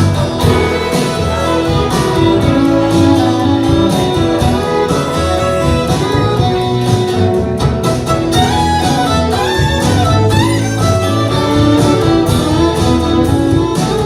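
Live country band playing an instrumental break with no vocals, stringed instruments carrying the tune over a steady beat.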